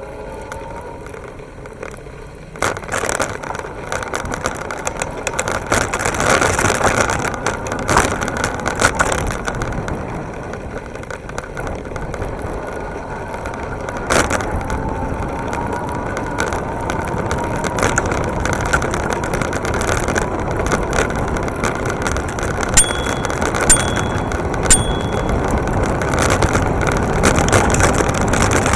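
Rumble of tyres on pavement and rattling vibration from a bike-mounted camera as an electric bike gets under way, picking up about two and a half seconds in and continuing steadily. Two-thirds of the way through, a bicycle bell rings three times, about a second apart.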